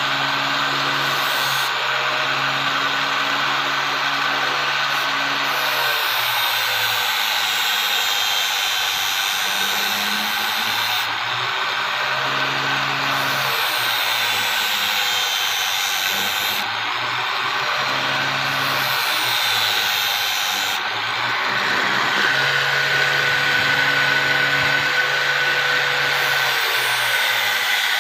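Electric angle grinder running steadily while a thin steel sickle blade is pressed against its disc and ground, throwing sparks. About two-thirds of the way through a steady high whine comes in and the grinding gets a little louder.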